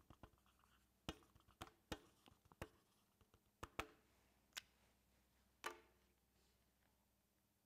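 Scattered sharp clicks from a laptop's keys or trackpad being tapped, about eight in the first six seconds, irregularly spaced, over near silence.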